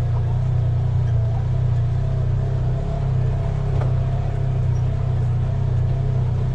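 Off-road buggy engine running steadily as it climbs a rough trail, heard from on board, with one light knock about four seconds in.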